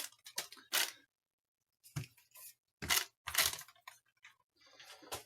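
A handful of separate short clicks and light knocks, spread unevenly with quiet gaps between them: small objects such as test leads and packaging being handled.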